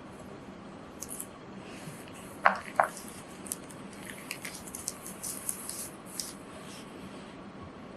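Scissors cutting a sheet of printed etching paper in short snips, with two louder clicks of the blades a little over two seconds in.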